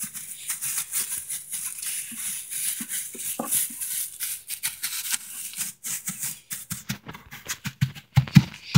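Hand pushing and patting loose wood shavings in a nest box: a steady crackly rustle, breaking into a few separate knocks near the end.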